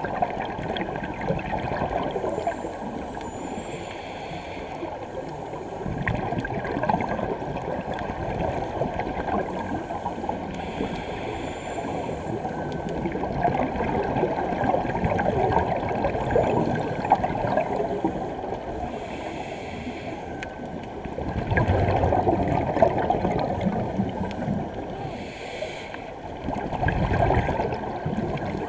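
Scuba divers' regulator breathing and exhaust bubbles heard underwater through the camera's housing: a muffled, continuous gurgling, with a faint hiss every seven seconds or so and louder bubbling rumbles twice near the end.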